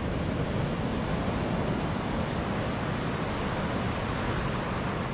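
Ocean surf breaking and washing up the sand in a steady rush, with wind rumbling on the microphone.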